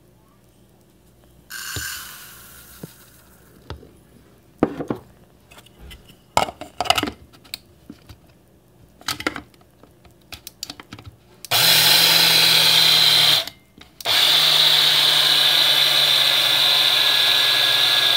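Electric blade coffee grinder grinding sesame seeds, partly toasted, for tahini. It runs for a couple of seconds, stops briefly, then runs steadily again with a constant pitch. Before that come scattered light clicks and knocks as the grinder and its lid are handled.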